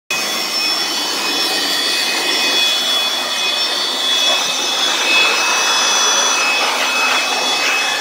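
Handheld electric blower running steadily, blowing air into a window air conditioner's chassis: a rush of air with a high motor whine.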